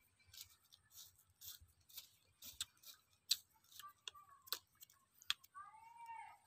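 Coarse salt crumbled and rubbed between fingertips: faint crisp crunches about twice a second, then a few sharper clicks. A short call sounds near the end.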